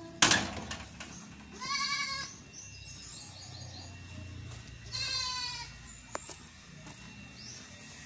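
Goats bleating: two wavering, high-pitched calls, about two seconds and five seconds in. A sharp knock, the loudest sound, comes just at the start.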